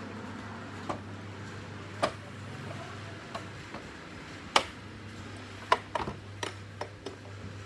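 Irregular sharp clicks and taps, like small hard parts or a tool being handled, over a steady low hum. The loudest click comes about halfway through, and a quick cluster follows near the end.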